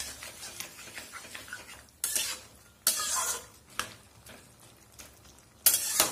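Flat metal spatula scraping and turning pumpkin stems and leaves in a metal kadai as they stir-fry in a little oil, with a faint sizzle. Three loud scrapes stand out, about two seconds in, about three seconds in, and near the end, with lighter clatter between.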